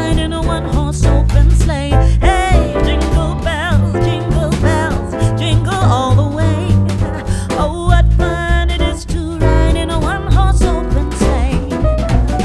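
A song playing: a sung voice with vibrato over bass and drums.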